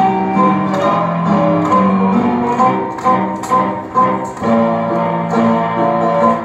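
Instrumental music: a melody of held notes over a steady beat.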